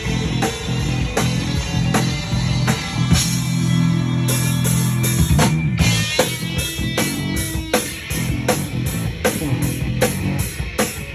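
Rock band playing live: a drum kit keeping a steady beat under guitar.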